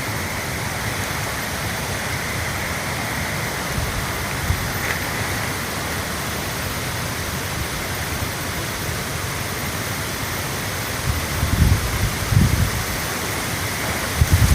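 Steady rushing of flowing water, with a few low rumbles of wind or handling on the microphone near the end.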